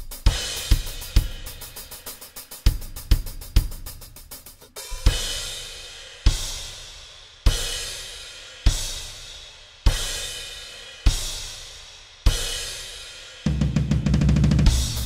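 Roland electronic drum kit playing a drums-only part. For about the first five seconds there is a kick, snare and hi-hat groove. Then come single crash-and-kick hits about once every 1.2 seconds, each left to ring, and a fast snare fill near the end.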